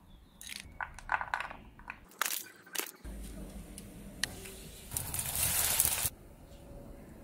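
Kitchen sounds: a run of light clicks and taps as small dried ingredients such as wolfberries drop into a china bowl, then a steady hiss of liquid cooking in a hot wok, loudest about five seconds in and cutting off about a second later.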